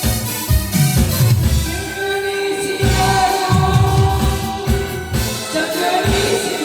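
A woman singing a Korean trot song over a backing track, holding long notes above a steady, pulsing bass beat.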